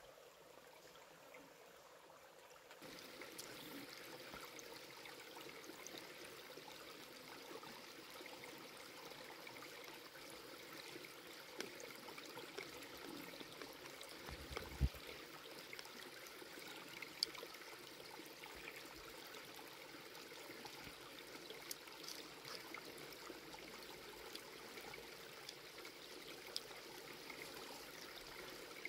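Faint running, trickling water that grows louder about three seconds in, with scattered small clicks and one low thump about fifteen seconds in.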